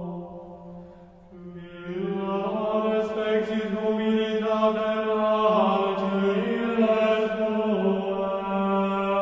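Slow background music of long held notes over a steady low drone, the notes changing every second or two; it sinks to its quietest about a second in and swells back about two seconds in.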